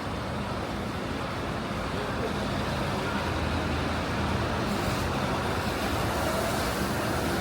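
City street traffic: the steady hum and road noise of passing vehicles, growing slightly louder toward the end.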